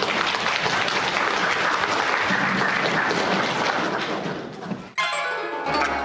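Audience applauding steadily for about five seconds, cut off abruptly. Then sustained notes from a Chinese instrumental ensemble begin near the end.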